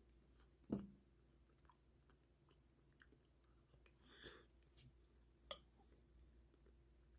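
Faint chewing and mouth clicks of a person eating fried rice, with a short thump just under a second in and a sharp click about five and a half seconds in.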